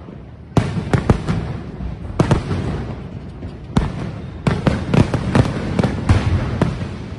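Aerial fireworks going off overhead: an irregular run of sharp bangs, about fifteen in all, with a brief lull a little before the middle and a low rumbling echo between them.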